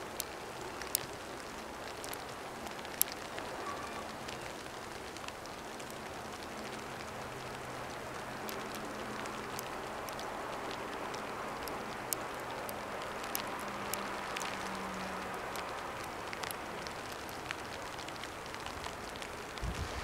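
Steady outdoor background noise with sparse light ticks, and a faint low hum that fades out about fifteen seconds in.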